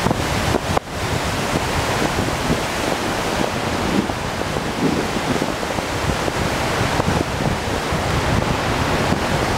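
Wind buffeting the microphone of a camera on a moving bicycle: a steady rushing noise.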